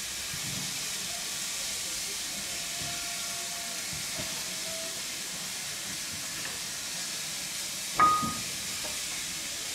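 BR Standard Class 4 2-6-0 steam locomotive with a steady hiss of steam escaping from around its cylinders and wheels. About eight seconds in there is a single sharp metallic clank with a short ringing tone, the loudest sound.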